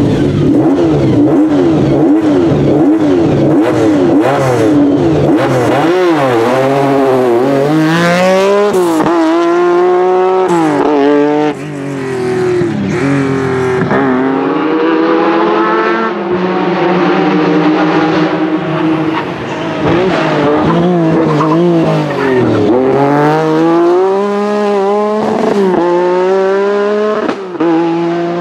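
Lancia Stratos rally car engine at full effort, revving up and down repeatedly as it shifts gears and lifts off for corners, with sharp crackles when it lifts off.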